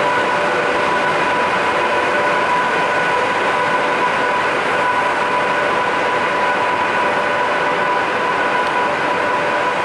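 Class 86 electric locomotive running as it moves slowly along the platform, a steady whine of held tones over a constant rushing noise.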